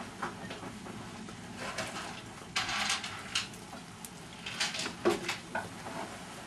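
Several short rustling and knocking sounds of someone rummaging in a low cabinet. The longest comes a little before halfway, with smaller ones scattered before and after.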